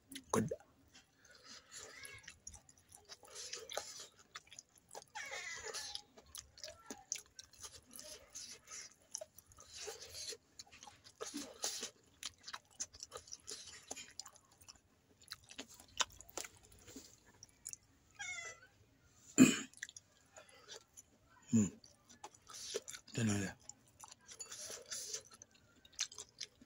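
Close-up chewing of fried gobi manchurian: irregular crunching and wet mouth sounds, with a few louder, short, low sounds in the second half.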